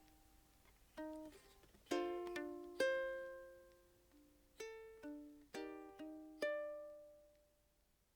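Background music: slow plucked ukulele notes and chords, each ringing and fading, dying away near the end.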